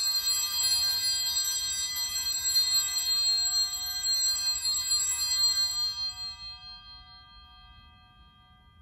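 Altar bells shaken in a rapid jingle for about six seconds, then left to ring on and fade away, marking the elevation of the chalice at the consecration.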